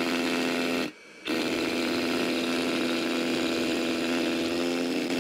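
Hilti Nuron TE 4-22 cordless SDS rotary hammer drill, with its dust-extraction attachment fitted, hammer-drilling a hole into concrete block. It gives a steady pitched hum, dips briefly about a second in, then runs on steadily until it stops at the end.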